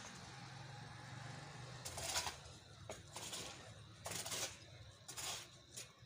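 Small open fire of dry grass and rubbish burning, a faint crackling hiss broken by several short, sharper bursts about a second apart.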